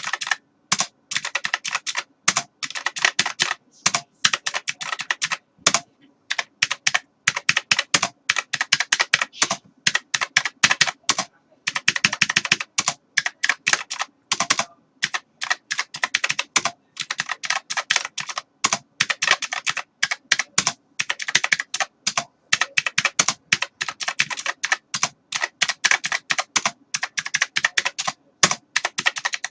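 Typing on a computer keyboard: fast, irregular key clicks in runs with brief pauses between them.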